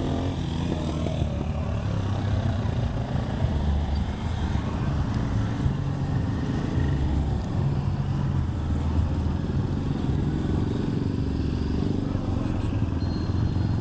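A line of small motorcycles riding slowly past one after another, their engines running at low speed in a steady rumble.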